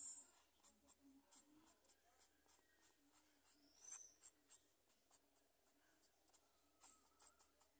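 Faint scratching of a black felt-tip marker on paper in short, quick strokes as it fills in a small dark area, with a louder stroke right at the start and another about four seconds in.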